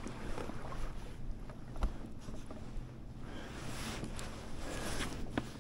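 Water sloshing against a small fishing boat's hull, over a steady low hum, with a few light knocks against the boat.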